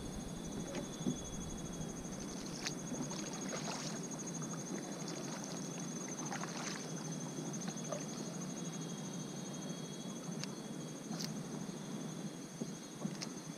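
Kayak paddle strokes dipping and splashing in the water as the kayak pushes through reeds, with a few sharper splashes and knocks. A steady high-pitched trill runs underneath.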